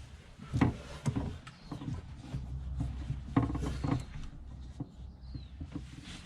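Handling noise: a few short knocks and rustles, as things are moved around the water heater fittings, over a low steady hum.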